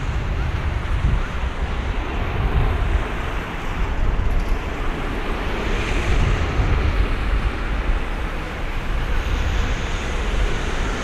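Steady roar of a departing Airbus A330-200's jet engines, mixed with heavy wind buffeting the microphone.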